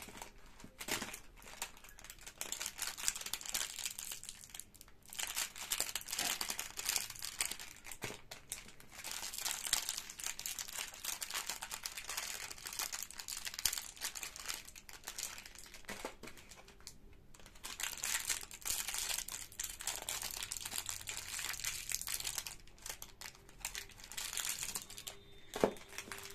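Plastic biscuit wrappers crinkling as the packets are picked up, handled and set down on a table, in bouts with short pauses. A sharp knock near the end.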